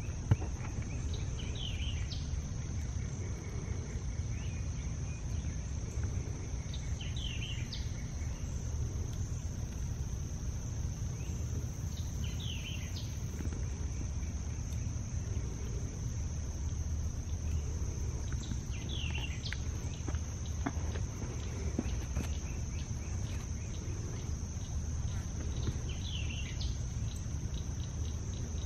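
Outdoor ambience: a steady, high-pitched insect chorus runs throughout, and a bird repeats a short, quick song phrase five times, about every six seconds, over a low rumble. There is one sharp click just after the start.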